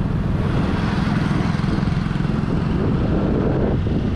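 Honda SH150 scooter's single-cylinder engine running as the scooter is ridden along a street, a steady low rumble.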